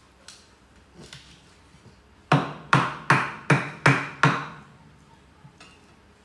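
Cleaver chopping a raw chicken on a wooden cutting board: a couple of light taps, then six hard chops in quick succession, about two and a half a second, around the middle.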